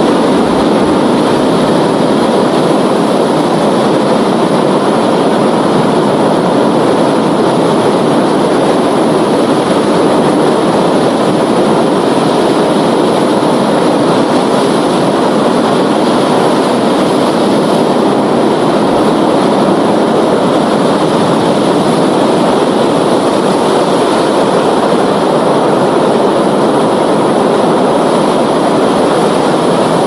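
Ocean waves: a loud, steady wash of surf noise that holds an even level, with no distinct wave breaks standing out.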